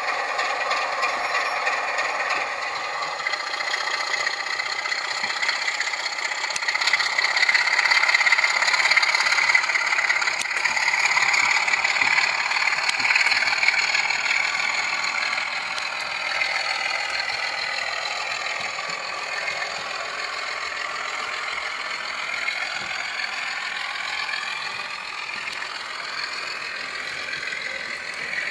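A model railway locomotive's sound-fitted diesel engine running, with some rattle; the engine note climbs and grows louder about a third of the way in, then falls back and quietens in the second half.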